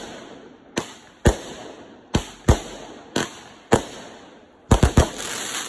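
Aerial fireworks going off: a string of sharp bangs, roughly two a second, each trailing away, then a rapid cluster of bangs and a short burst of noise near the end.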